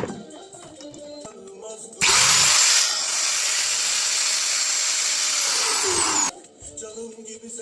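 DEWALT D28135 angle grinder motor running for about four seconds with a high whine, switching on and off abruptly. This is a test run after repair of its won't-start fault.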